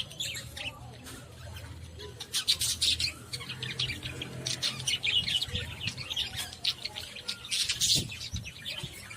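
A flock of love birds (small pet parrots) chirping and squawking, a dense run of short, high, rapid calls overlapping one another.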